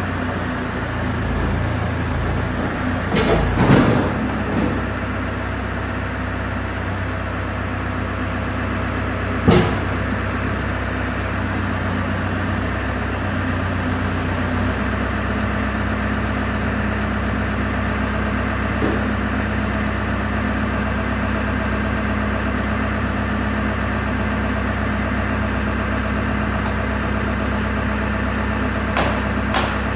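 Case 580 Super M backhoe's diesel engine idling steadily, its note shifting slightly about halfway through. A few metallic knocks come early and about ten seconds in, and a quick series of sharp hammer taps near the end.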